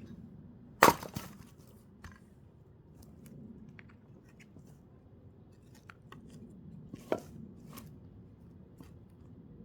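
Axe blows into a thick firewood log: a hard strike about a second in with a brief splintering crackle, a small knock, then a second strike near the end.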